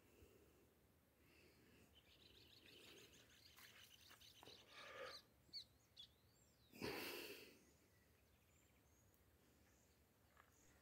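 Near silence with faint bird chirps: a quick trill-like run a few seconds in and a couple of short chirps just before the middle. A brief rush of noise comes about seven seconds in.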